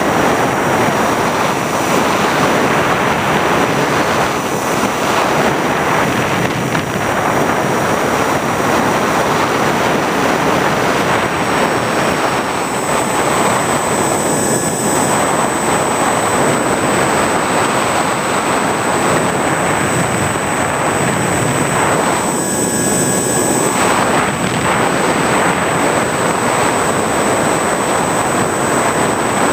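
Steady rush of wind and propeller noise on the onboard camera's microphone of an FPV model aircraft in flight, with a thin high whine that shifts higher about twelve seconds in.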